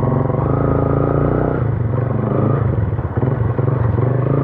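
Yamaha FZ V2's single-cylinder engine running through an aftermarket Akrapovic exhaust with the DB killer still fitted, a steady pulsing note. A higher steady tone sits over it for roughly the first second and a half.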